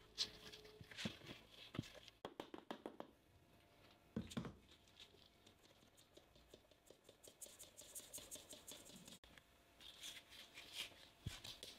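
Quiet kitchen handling: a spatula scraping and stirring soft batter in a plastic bowl, then flour shaken through a fine metal sieve as a quick run of light taps and rustling, then the spatula folding the flour in near the end.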